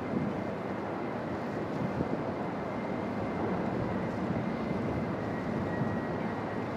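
Diesel freight train running slowly along curved track, a steady rumble with a faint, thin, high whine over it.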